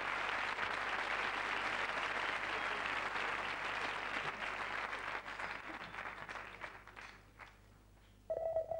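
Studio audience applauding, the clapping thinning out and dying away over the last few seconds. Near the end a single held musical note comes in as the band's music begins.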